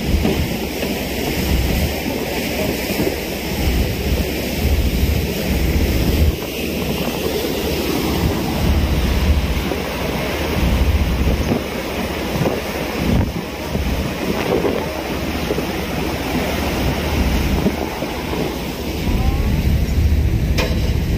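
Wind buffeting the microphone on the open deck of a moving ferry, in uneven gusts, over a steady rush of sea water.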